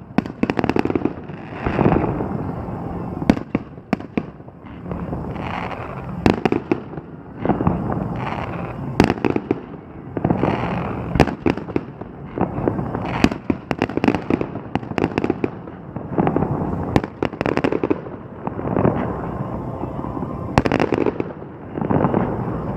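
Fireworks display: shells bursting in quick, irregular succession, sharp bangs mixed with heavier booms.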